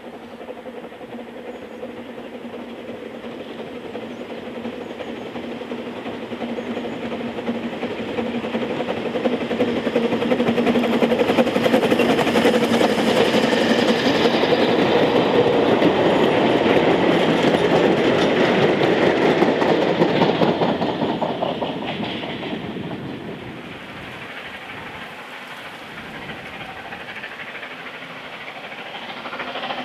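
Narrow-gauge steam train with a string of wagons approaching and passing, its wheels clattering over the rail joints. It builds up, is loudest about halfway through, then fades away.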